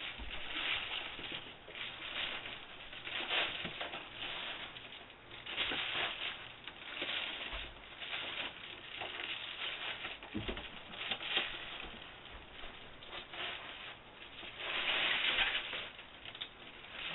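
Foil radiant barrier and tape crinkling and rustling in irregular bursts as the barrier is handled and taped around the water heater, with the longest, loudest burst near the end.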